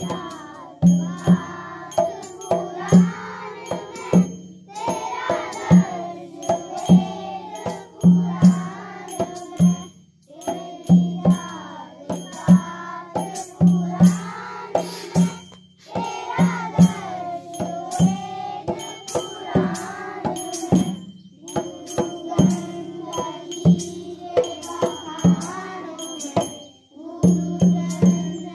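Children singing a prayer in unison at a school assembly, in phrases with short breaks between them, over a drum struck on a steady beat and a jingling percussion instrument.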